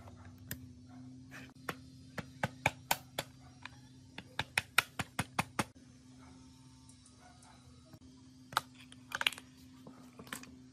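Sharp metal-on-metal taps from a hammer on a drift, driving the piston pin out of a small two-stroke motorcycle piston: a quick run of about fifteen blows, roughly four a second, then a few scattered clicks near the end, over a steady low hum.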